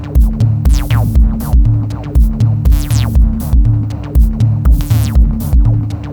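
Background electronic music with a steady drum-machine beat of about two kicks a second, synth tones, and falling sweep effects.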